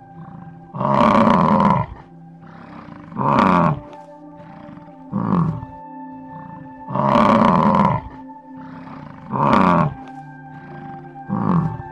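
American bison bellowing six times, deep rough roars of up to about a second each, over soft ambient background music with long held tones.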